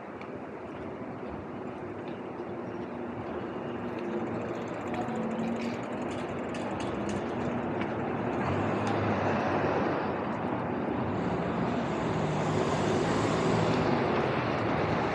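Road vehicle noise, engine and tyres, growing steadily louder as a vehicle draws near.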